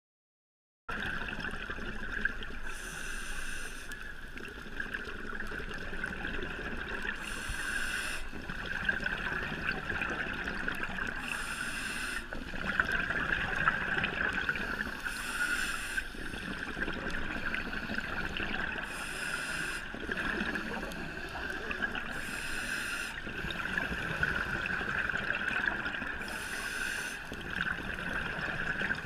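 Scuba breathing through a regulator underwater, starting about a second in: a rush of exhaled bubbles about every four seconds, seven times, over a steady hum.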